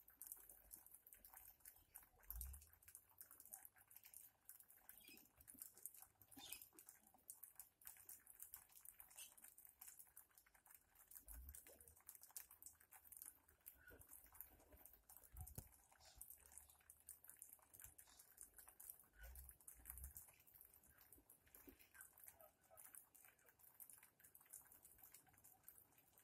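Faint, rapid clicking and pattering from a flock of white cockatoos and galahs pecking and cracking grain on the ground, over near silence, with a few soft low bumps.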